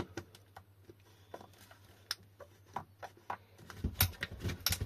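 Scattered light clicks and taps from handling a plastic e-bike battery pack and its key lock, with a cluster of louder knocks and thuds near the end.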